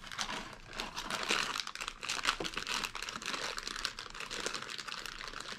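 Packaging of a blind-box mini figure crinkling in the hands as it is opened and felt through, an irregular run of small crackles.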